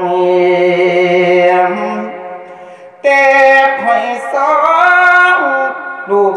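A Buddhist monk singing a Thai verse poem into a microphone, in long, drawn-out melodic phrases with a wavering pitch. One phrase fades away about two to three seconds in, and a new, louder phrase starts right after.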